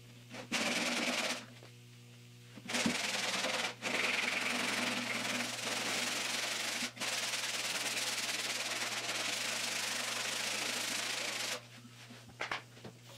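Hand sanding with a sanding block over fibreglass body filler on a steel car door: a steady scratching rasp in long strokes, pausing briefly about a second and a half in and stopping shortly before the end.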